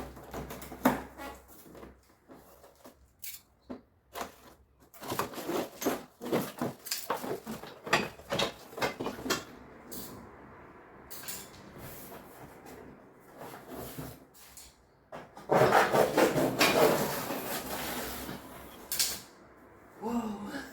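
Items being unpacked from a delivery box by hand: a run of knocks, clinks and handling noises from hard parts, with a louder stretch of rubbing or rustling packaging about three-quarters of the way through.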